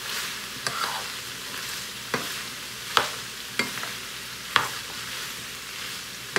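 Chorizo and diced potatoes sizzling in a frying pan while a metal spoon stirs them, knocking and scraping against the pan about six times; the sharpest knocks come about three and four and a half seconds in.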